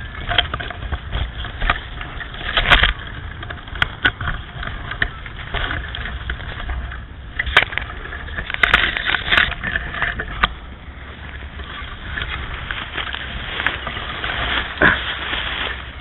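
Wind buffeting the small onboard camera's microphone on a tricopter lodged in a tree, a steady low rumble with rustling. Scattered sharp knocks and clicks come through it, loudest about three seconds in and around nine seconds.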